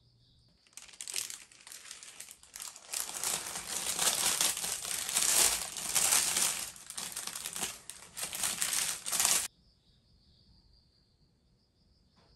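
Loud crinkling and rustling handling noise, starting about a second in and cutting off abruptly near the end. Faint, steady cricket chirping is heard before it starts and after it stops.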